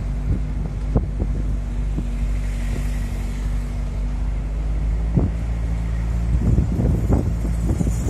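Vehicle engine running steadily, heard from inside the moving vehicle, with wind rushing past and scattered knocks and rattles that come more often near the end.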